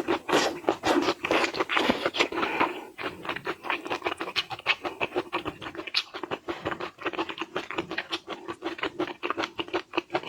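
Close-up eating sounds: food being chewed and crunched, a dense run of irregular crackles and clicks that is busiest in the first few seconds.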